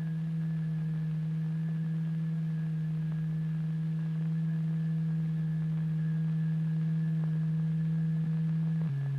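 A steady, low electronic test tone, the driving frequency of a cymatics vibrator setting a fluid layer vibrating. Near the end it steps down suddenly to a lower pitch.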